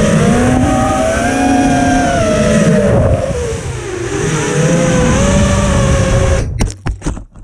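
FPV racing quadcopter's electric motors and propellers whining, the pitch rising and falling with the throttle over a rush of air, as picked up by the quad's onboard camera. The sound cuts out sharply near the end, followed by a few short knocks.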